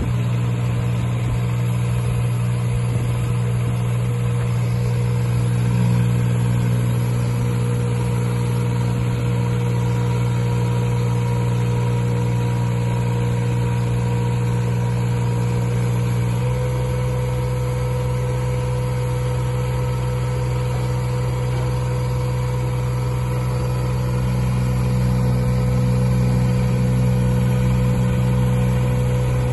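Teupen Leo 22T tracked spider lift's engine and hydraulic pump running steadily with a steady whine as the boom is lowered and retracted. About halfway through the pitch steps slightly up and the low hum grows heavier.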